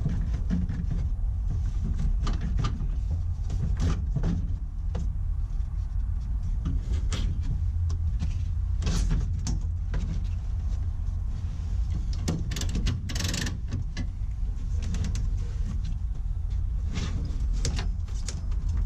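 Nissan S13 plastic dashboard being worked loose and lifted out of the car: scattered knocks, clunks and scrapes of the dash against the frame and cage, over a steady low rumble.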